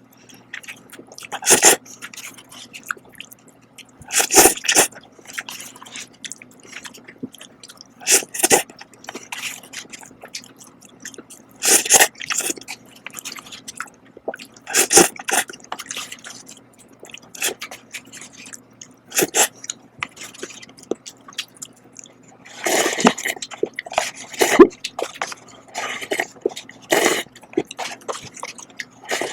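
A person eating Shin Ramyun cup noodles close to the microphone: steady chewing with louder, noisy bursts every few seconds.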